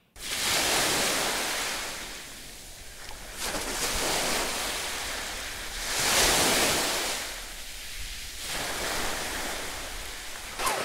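Sea surf washing onto a beach, the noise of the water swelling and fading every two to three seconds.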